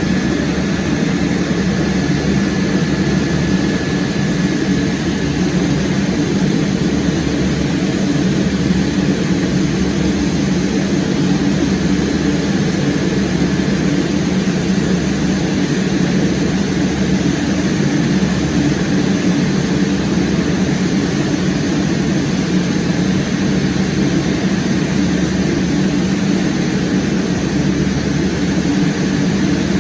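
Steady, unbroken engine drone of an airliner in flight.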